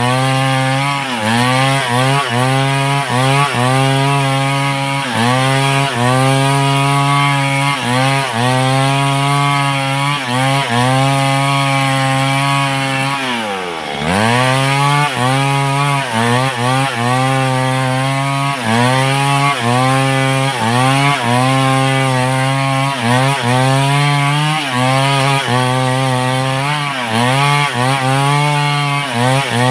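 Large two-stroke chainsaw running at high revs while cutting wood, its pitch sagging briefly about once a second as the chain bites. About halfway through, the engine drops almost to idle and then revs back up.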